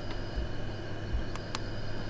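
Steady hum and whir of an air conditioner running. Two short clicks come about a second and a half in as a hand presses the battery power station's front-panel button and its display lights.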